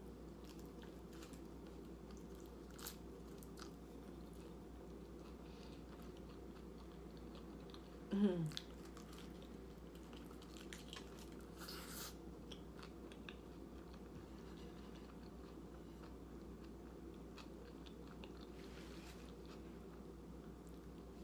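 Close-up chewing and crunching of tortilla chips with a soft bean dip, with small mouth clicks over a steady low hum. About eight seconds in there is one short, low vocal sound that slides down in pitch.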